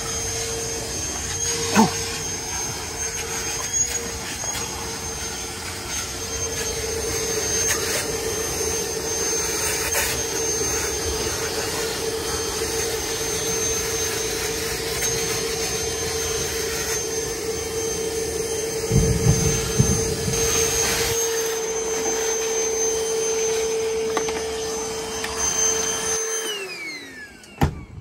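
Shop vac running with a steady whine, with a few knocks along the way. About 26 seconds in it is switched off and its motor winds down, the pitch falling away.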